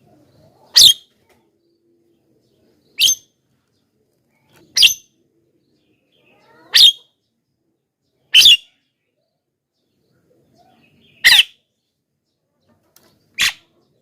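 Javan myna (jalak kebo) giving seven short, loud calls, one about every two seconds, with a longer gap before the sixth.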